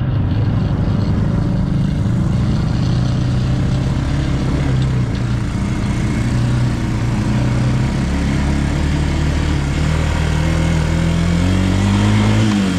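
ATV engine running steadily under way, with tyre and ride noise, its pitch climbing over the last couple of seconds as the throttle opens, then falling away.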